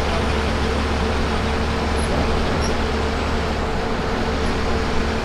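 Bus under way: a steady low engine hum with road and tyre noise.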